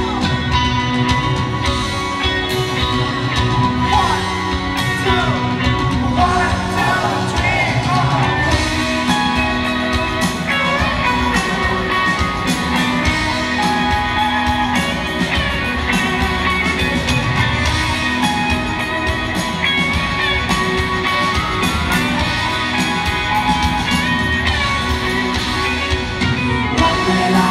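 Rock band playing live with electric guitars and drums, a singer's voice carrying the melody over a steady beat.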